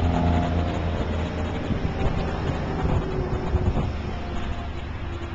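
A vehicle engine running steadily with a low, even hum, with wind noise on the microphone.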